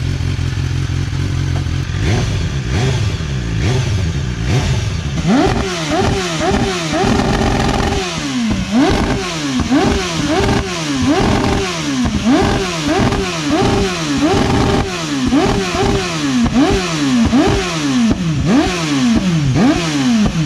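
BMW S1000R inline-four with an Akrapovic exhaust idling steadily, then revved in a long series of quick throttle blips starting about five seconds in, the pitch rising and falling a little more than once a second.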